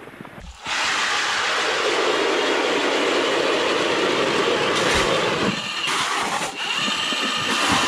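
Battery-powered electric ice auger drilling through lake ice, a steady grinding run that starts about half a second in and eases off after about five and a half seconds, with a thin high whine near the end.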